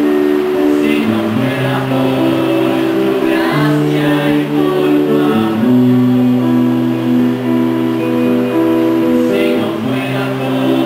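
A trio of voices, a girl, a woman and a man, singing a slow worship song together in long held notes, accompanied by a strummed acoustic guitar.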